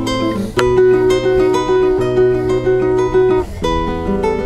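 Classical nylon-string guitar played fingerstyle: a flowing run of plucked notes over held bass notes, with brief breaks in the phrase about half a second in and again near the end.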